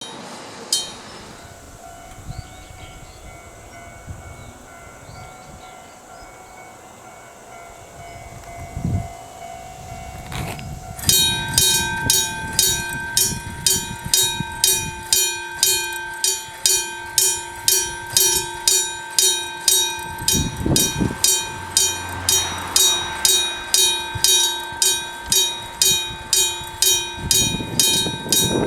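Gong-type railway level-crossing alarm: an AC electric alarm bell that mechanically strikes a metal gong. It starts about eleven seconds in and rings on at roughly two strikes a second, in a slightly uneven rhythm. Before it starts there is only quiet background with a faint steady tone.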